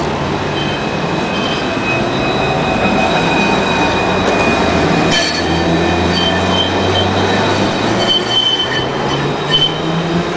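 Alstom Citadis 302 tram running past close by on curved track, its wheels squealing in several steady high tones over a low rumbling hum, with one sharp click about five seconds in.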